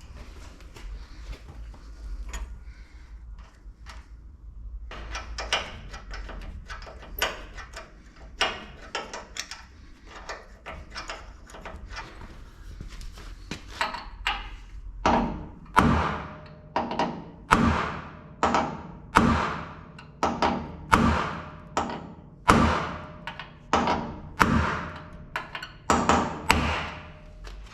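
Hammer blows on metal. Scattered lighter knocks give way, about halfway through, to a steady run of hard ringing strikes, roughly one and a half a second, as when driving out parts during a truck's rear leaf-spring suspension teardown.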